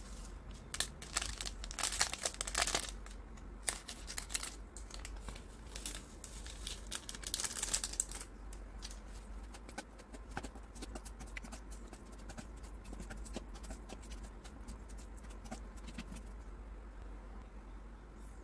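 Plastic instant-noodle seasoning sachets crinkling and being torn and squeezed open for the first eight seconds or so, with dense crackling. After that, softer scattered clicks and scrapes of chopsticks stirring noodles on a plate.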